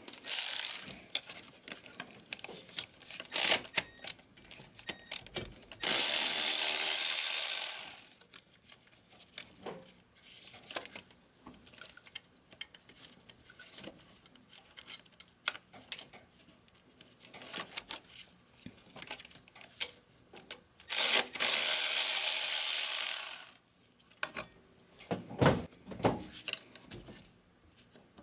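Hand work on a diesel engine's wiring harness: scattered clicks, clinks and knocks of tools and parts being handled. Two loud hissing sounds of about two seconds each come a few seconds in and again near the end.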